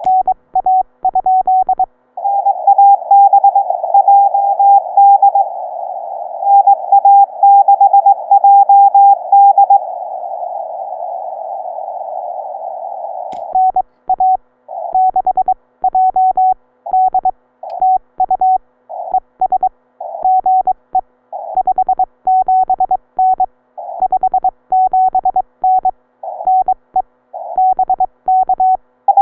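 Morse code (CW) from a ham radio transceiver: a single steady tone keyed on and off in dots and dashes over narrow-filtered receiver hiss. From about a third of the way in, the keying comes in choppy bursts with dead silence between the characters.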